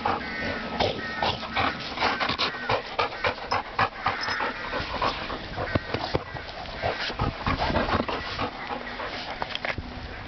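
Dogs panting right at the microphone, with frequent rustles and knocks as their fur and bodies brush against the camera.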